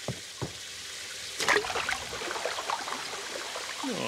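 Water from a leaking pipe dripping a few times, then about a second and a half in it starts gushing and spraying, a steady splashing rush.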